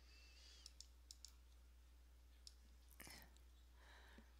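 Near silence with a handful of faint, scattered computer mouse clicks over a low steady electrical hum.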